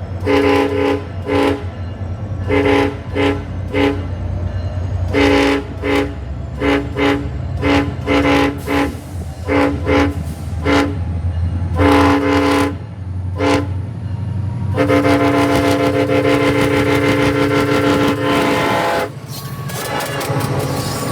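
SunRail commuter locomotive's multi-chime air horn played in a horn show: a quick string of short toots and stuttered blasts, then one long blast of about four seconds. A steady low diesel rumble runs underneath.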